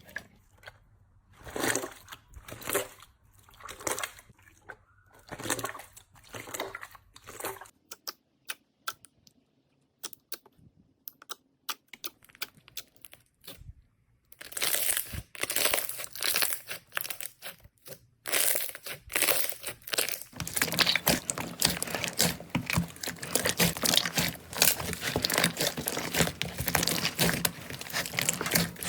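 Slime being squeezed and pressed by hand, first in slow separate squishes about one a second, then after a few scattered clicks, a dense run of crackling and popping that grows thicker for the last third.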